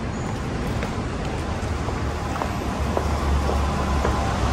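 Busy city street ambience: a steady wash of traffic noise with a low rumble that grows louder about three seconds in.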